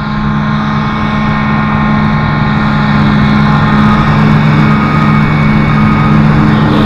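Heavy diesel farm machinery running steadily under load, a loud engine drone with a constant low hum that grows somewhat louder over the first few seconds.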